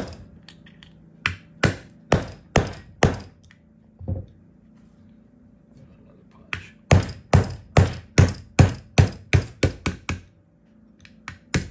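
Brass hammer striking a pin punch to drive a tight pin out of a Staccato P pistol frame: five or six spaced taps, then after a pause a quick run of about ten taps at roughly three a second, and a couple more near the end.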